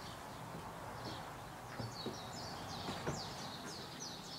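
A small songbird chirping in quick series of short falling notes over a steady outdoor background hiss, the chirps coming thick in the second half. A few sharp knocks come near the middle, the loudest about three seconds in.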